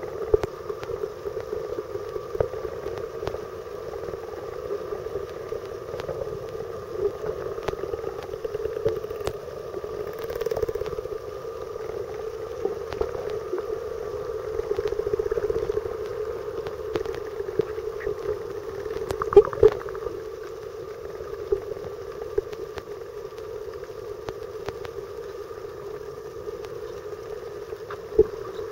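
Underwater sound of a boat's engine, heard through the water as a steady drone, with scattered faint clicks and two sharper knocks in the last third.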